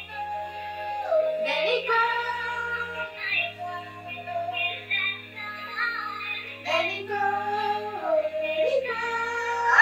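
Electronic toy pony playing a children's song: a high synthetic voice sings a melody that slides between notes over a simple electronic tune with a steady bass.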